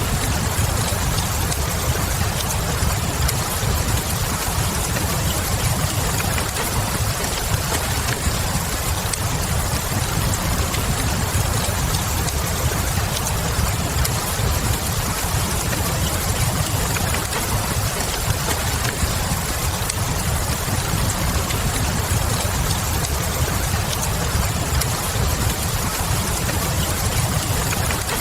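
Steady rain with a low rumble under it, mixed with a crackling log fire whose faint crackles pop out here and there.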